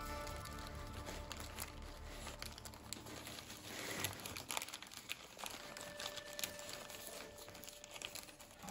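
Origami paper crinkling and crackling as a pleated, creased sheet is pressed and collapsed by hand: many small irregular crackles, with a sharper one about four seconds in.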